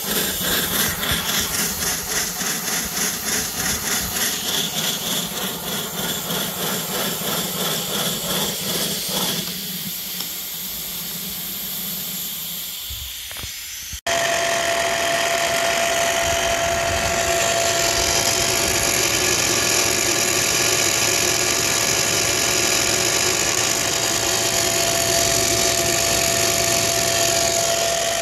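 5-inch gauge Pansy model steam locomotive running on a rolling road, its exhaust beating rapidly and evenly with steam hiss, then fading away about ten seconds in. After a sudden cut, a steady whine and hiss from an electric steam-raising blower fitted on the chimney.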